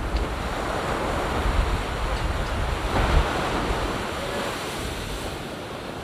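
Surf from small waves washing up a sandy beach and draining back, with a louder surge about halfway through. Wind rumbles on the microphone underneath.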